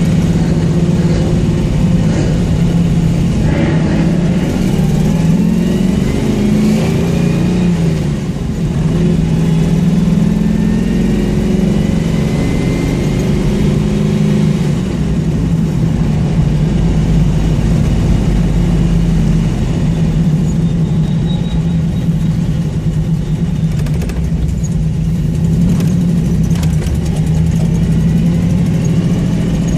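Car engine with an exhaust leak, running loud and steady with a low drone whose pitch rises and falls a few times as the throttle changes.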